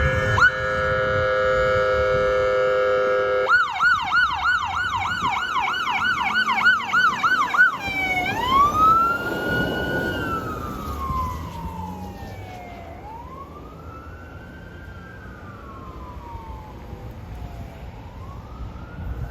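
Ambulance warning devices: a steady air horn blast of several tones for about three seconds, then a fast warbling yelp siren. About eight seconds in it changes to a slow rising-and-falling wail that fades as the ambulance drives away.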